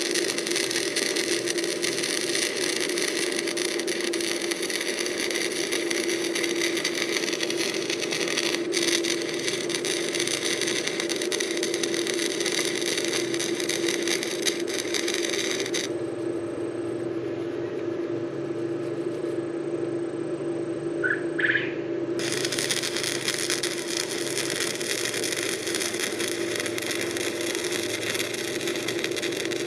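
Electric arc welder laying tack welds: the arc crackles and sizzles steadily, stops for several seconds a little past the middle, then strikes again and carries on. A steady hum runs underneath throughout.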